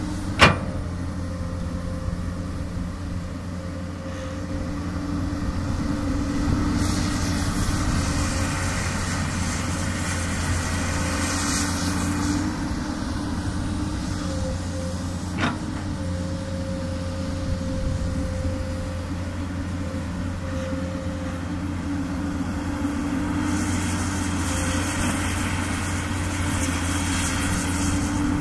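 Komatsu PC200 excavator's diesel engine running steadily under work, with a high hiss that swells and fades twice. Two sharp knocks, one right at the start and one about halfway through.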